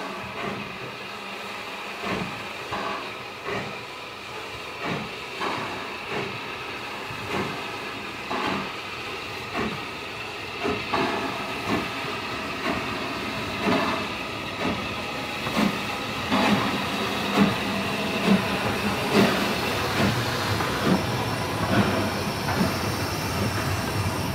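LBSCR H2 class Atlantic steam locomotive 32424 'Beachy Head', a new-build replica, working a train past: evenly spaced exhaust chuffs about one a second over a steady hiss of steam, growing louder as it draws near. Near the end a high wheel squeal starts up.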